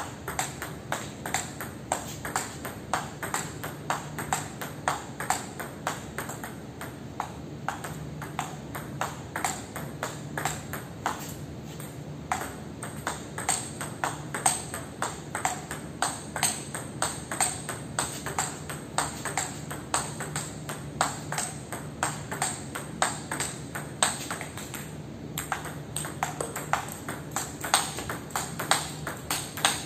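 Table tennis rally: a celluloid-type ping-pong ball struck back and forth with rubber-covered wooden paddles, giving rapid, regular clicks of ball on paddle and table, about three a second, with brief breaks between points.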